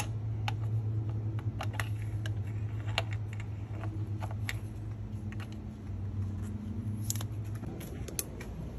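Scattered small metal clicks and taps as a magnetic pickup tool's rod is worked down into a spark plug well, over a steady low hum that stops near the end.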